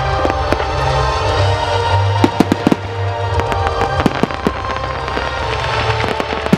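Firework shells bursting in a display, with a run of sharp bangs and crackles and a quick cluster of loud reports about two to three seconds in, over loud music.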